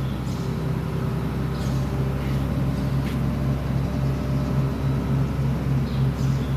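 Bulldozer's heavy diesel engine running steadily with a deep hum. In the second half the hum throbs evenly a few times a second.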